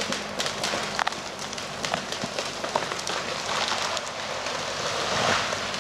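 A tall felled tree toppling through the neighbouring trees: a run of sharp cracks as branches snap, with a rushing swish of branches building over the last couple of seconds.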